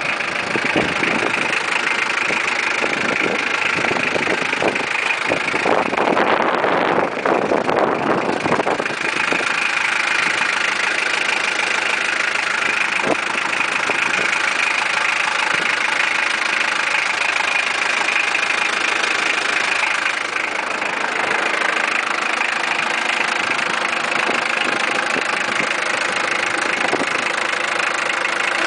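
Mitsubishi Pajero's 2.5-litre four-cylinder turbo diesel idling steadily, with a few seconds of louder rushing noise about six seconds in.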